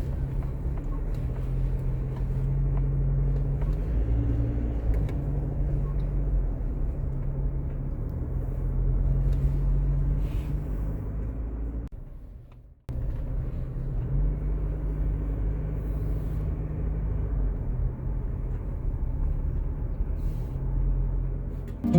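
A motor vehicle running: a steady low engine hum and rumble whose pitch shifts now and then. It fades out about halfway through and comes straight back in.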